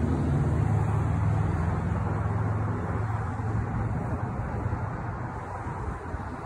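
Low engine rumble of a nearby motor vehicle, steady at first and slowly fading away.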